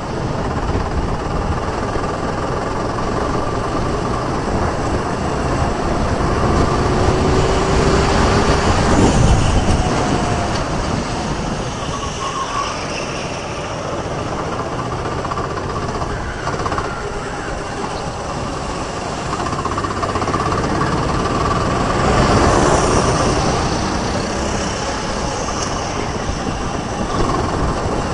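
Sodi rental go-kart engine heard from an onboard camera at racing speed, mixed with wind rushing over the microphone. The engine note rises and falls with the throttle through the corners, loudest about nine seconds in and again past twenty seconds.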